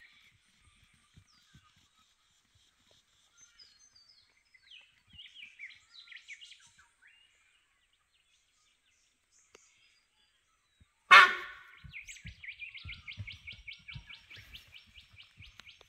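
Wild birds chirping faintly, then one loud, sharp call or crack about eleven seconds in, followed by a bird's rapid, evenly spaced chattering trill that runs on to near the end. Faint low knocks of footsteps on the bush track lie underneath.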